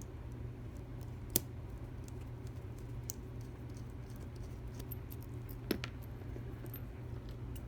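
Small metal clicks and taps from a pick and padlock parts being handled during disassembly, the sharpest about a second and a half in and another near six seconds, over a steady low hum.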